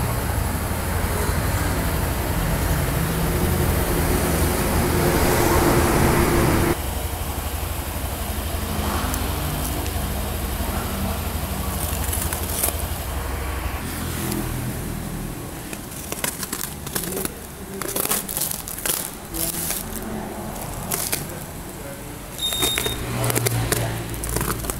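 A steady low rumble that cuts off abruptly about seven seconds in, then, from about sixteen seconds, plastic packing tape on a parcel crinkling and crackling in quick sharp clicks as a hand rubs and grips it.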